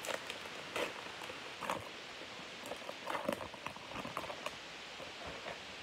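Foil wrapper of a hockey card pack being torn open and crinkled by hand: a run of irregular crackles and rustles over a steady background hiss.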